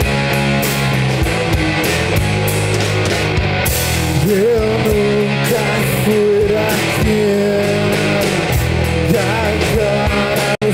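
Live grunge rock band playing: electric guitars, bass guitar and drums together, with a steady drumbeat and a held, wavering melody line over the top from partway through. The sound drops out for an instant near the end.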